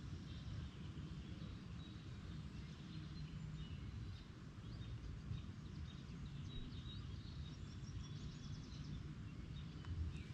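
Faint bird chirps scattered over a steady low background rumble.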